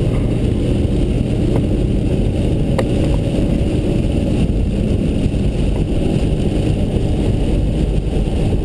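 Car driving on a rain-wet road, heard from inside the cabin: a steady low rumble of engine and tyres with a band of tyre hiss. A couple of faint ticks sound about one and a half and three seconds in.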